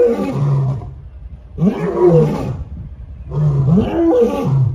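Male lion roaring, a series of deep roars, one about every two seconds.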